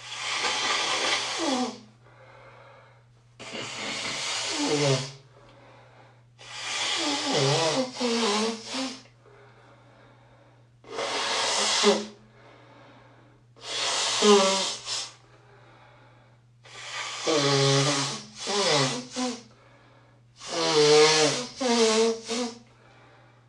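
A congested nose being blown hard, seven forceful blows a couple of seconds apart. Each is a rush of air, and several end in a honk that drops in pitch, some with a quick shorter blow straight after. A steady low hum runs underneath.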